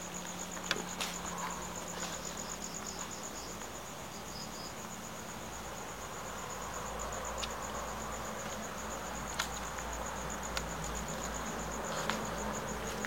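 Crickets trilling steadily in a rapid, high-pitched pulse, with a few faint clicks and a low background hum.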